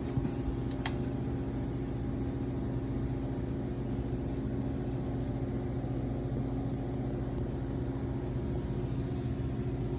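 Steady low mechanical hum that does not change, with one short click about a second in.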